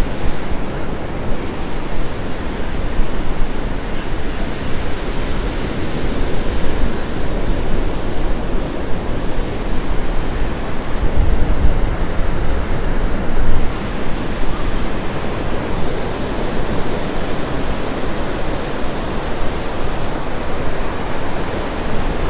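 Gulf of Mexico surf breaking on a sandy beach, a steady rushing wash of waves, with wind buffeting the microphone in deep gusts now and then.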